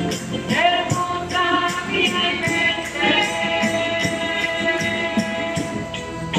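A hymn sung to a strummed acoustic guitar, with a tambourine shaking a steady beat about twice a second.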